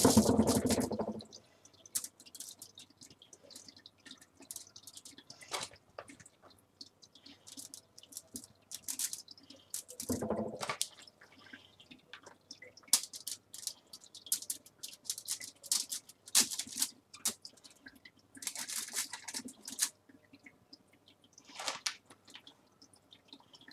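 Plastic bag of shredded pizza cheese crinkling in short, scattered rustles as the cheese is shaken out and sprinkled by hand over stuffed shiitake caps, with a fuller thump of handling about ten seconds in.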